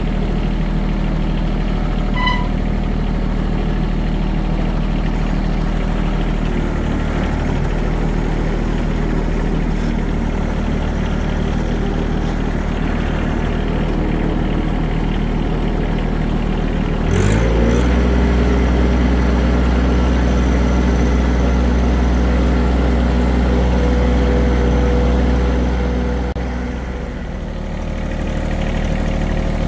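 Compact tractor engine running steadily close by. About 17 seconds in the throttle is opened and it runs faster and louder, then it eases off briefly near the end.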